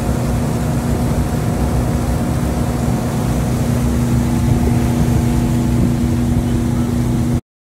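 Malibu wake boat's inboard engine running steadily under way, a constant drone over the rushing wash of the surf wake; the sound cuts off abruptly near the end.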